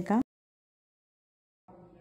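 The last word of a woman's speech, then dead silence for about a second and a half, with a faint murmur fading in near the end.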